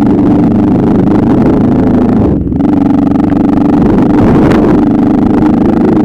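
Motorcycle engine running steadily and loud while riding, with a brief drop in level about two and a half seconds in.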